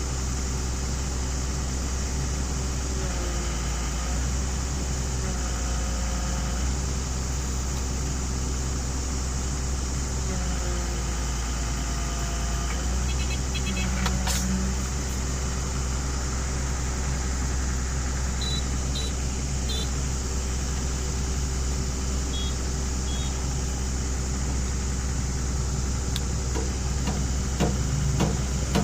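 Excavator's diesel engine running steadily, with a whine that shifts in pitch a few times as the hydraulics work. There is a sharp knock about halfway through and several knocks near the end.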